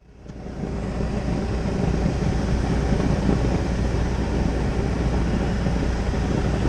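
Gas-fired heating section of an old Carrier rooftop unit running, a steady low rumble with a hiss, as the burners fire with flames rolling back: a sign of a serious combustion fault.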